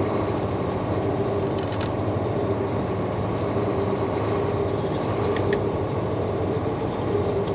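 Semi truck's diesel engine running steadily, heard from inside the cab as the truck rolls slowly, with a few faint clicks.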